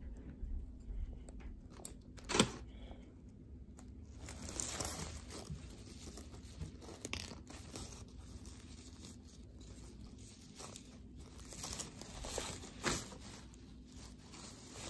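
Tulle netting rustling and crinkling as it is handled. A few sharp clicks come through it, the loudest about two and a half seconds in and another near the end.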